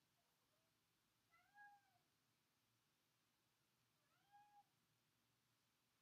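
Two faint cat meows about three seconds apart, each a short call that rises and falls in pitch, over near silence.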